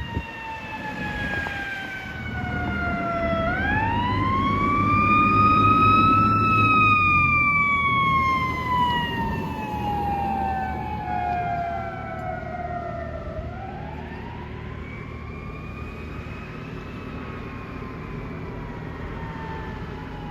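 Fire engine siren wailing in two slow cycles: each one a quick rise in pitch and then a long falling wind-down, with the truck's engine rumbling underneath. It is loudest about six seconds in.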